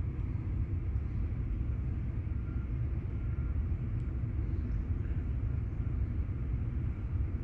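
Steady low rumble of a vehicle engine running, with no distinct events.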